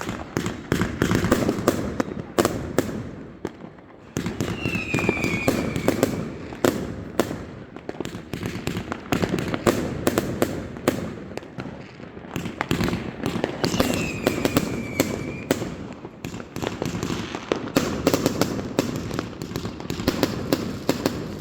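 Many fireworks going off at once: a dense, unbroken string of bangs and crackling firecrackers. A short falling whistle comes through twice, about five seconds in and again about fourteen seconds in.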